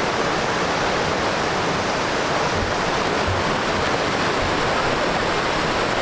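Mountain creek rushing over rocks and small cascades: a steady, unbroken rush of whitewater.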